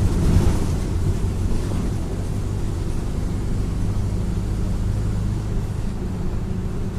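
Mercedes-Benz OF-1721 BlueTec 5 bus's four-cylinder diesel engine running steadily with a low drone, a little louder in the first half second.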